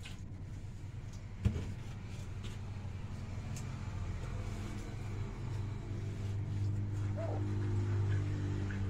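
A vehicle engine's low, steady hum that grows louder over the second half, with a single sharp knock about a second and a half in.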